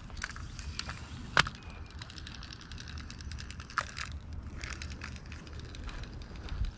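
Handling noise from fishing tackle while fishing from the bank: a run of small irregular clicks and ticks with two sharper clicks, over a steady low rumble.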